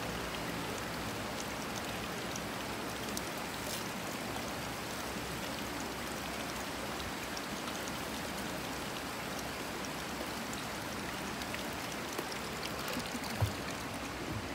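Steady running water of a hot-spring foot bath, an even rushing hiss. A brief low thump near the end.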